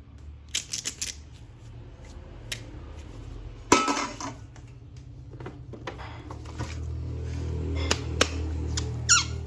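Hard plastic toys and packaging handled, with scattered clicks and knocks and a louder clatter about four seconds in, over a low steady hum.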